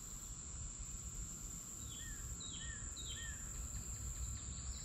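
Summer outdoor ambience: a steady high insect drone over a low wind rumble, with a bird giving three short, falling chirps about two to three seconds in.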